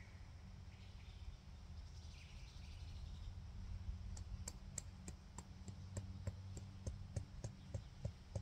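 Faint outdoor background with a steady low rumble, and from about four seconds in a run of quick, evenly spaced faint clicks, about four a second.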